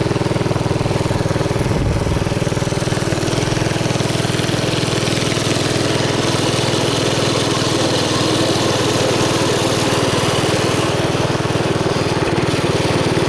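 Mini bike's small engine running at a steady throttle while riding, an even buzzing hum that holds its pitch throughout.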